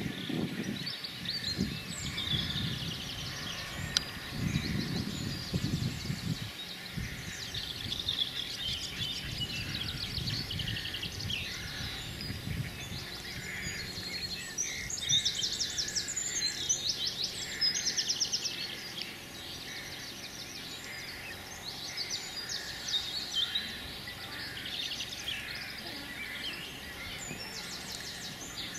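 Birds calling and singing around the water, with many high chirps and rapid trills, busiest about halfway through. A low rumble lies under the first seven seconds or so.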